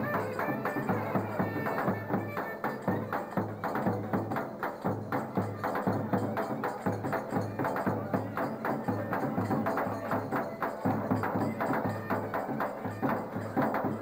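Turkish folk dance music on davul and clarinet: a steady low drum beat with many quick sharp strokes, under a clarinet melody that stands out most in the first couple of seconds.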